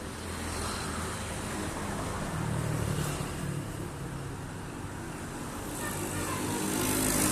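Large bus engine running with a steady low hum, under road and tyre noise that grows louder over the last couple of seconds as the bus comes closer.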